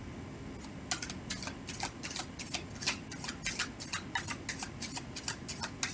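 A deck of tarot cards being shuffled by hand: a quick, irregular run of soft card slaps and flicks, about four a second, starting about a second in.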